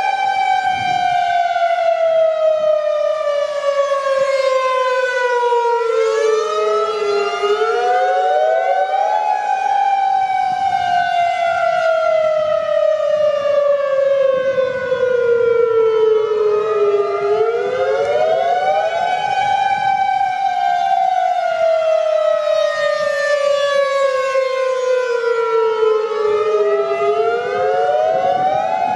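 Federal Signal electronic outdoor warning sirens (Modulator 5020 and 2001-SRN) sounding a loud rising and falling wail. Each cycle climbs quickly, then slides down slowly, and repeats about every ten seconds. Several siren tones overlap slightly out of step.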